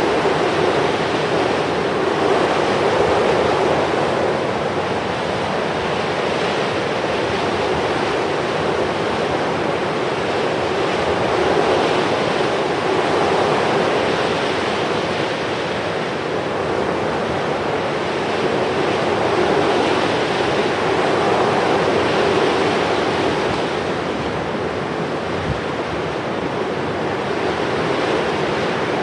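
Steady rushing noise that swells and eases every few seconds.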